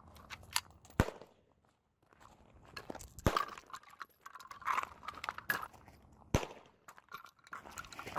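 Three sharp gunshots, about a second in, two seconds later and three seconds after that, with crunching footsteps on gravel between them.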